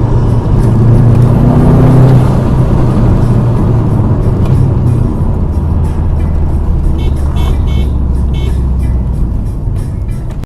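Car engine and road rumble picked up by a dash cam, steady and loud, with music playing along with it. The engine note drops lower about halfway through.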